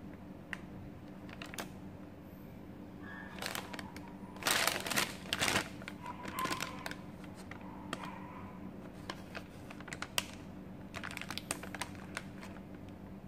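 Plastic KitKat Mini snack pouch crinkling as it is handled and turned over: scattered crackles and clicks, loudest in a burst of crinkling about five seconds in.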